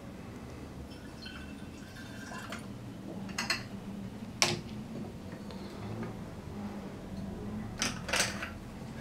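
Glass lab bottles and plastic screw caps being handled and wort poured: a few sharp clinks and clicks, the sharpest about four and a half seconds in, and another pair near the end, over faint liquid sounds.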